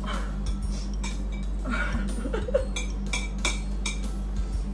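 Chopsticks and a fork clinking and scraping against ceramic plates of noodles, a scatter of light, irregular clicks over a steady low hum.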